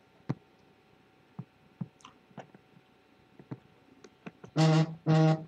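Faint, scattered small clicks and ticks during a pause, then near the end two short hummed syllables from a man, steady in pitch, like a hesitant 'mm, mm'.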